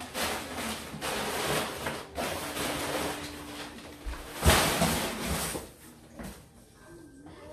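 Crumpled packing paper rustling and crackling as it is pulled from a cardboard box and handled, with one sharp, louder sound about four and a half seconds in, after which it quietens.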